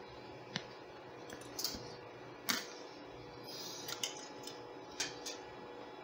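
Light scattered clicks and taps, about half a dozen, from a soldering iron and solder wire being handled at a circuit board's connector pins, over a faint steady electrical hum.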